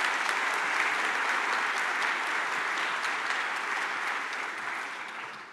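Audience applauding: steady clapping that dies away near the end.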